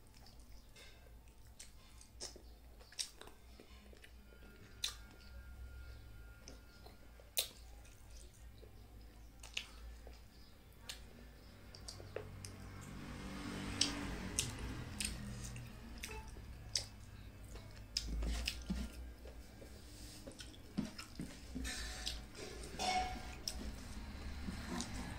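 Faint eating sounds: chewing and mouth smacks as rice and soup are eaten by hand. Scattered small clicks come from fingers gathering rice on the plate, and the sounds grow denser about halfway through.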